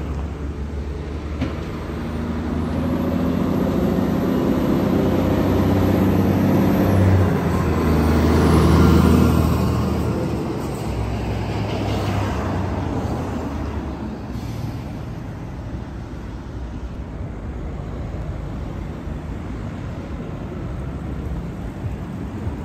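Heavy-haul truck, a tractor unit towing a mobile crane on a multi-axle trailer, driving past on its diesel engine: the sound grows louder to a peak about nine seconds in, then fades as the convoy moves away, leaving steady car traffic noise.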